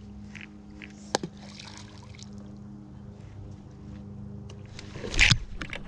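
Boat motor humming steadily at one pitch, with a sharp click about a second in and a sudden splash of water near the end.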